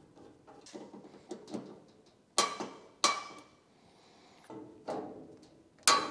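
Hand tools and metal hardware clinking against the copper bus bar and steel battery cabinet while a cable lug is fastened. Three sharp metallic clinks, each with a short ring, stand out among lighter taps and rattles.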